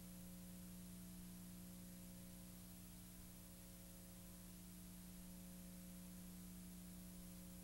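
Near silence: a steady low hum with faint hiss and nothing else.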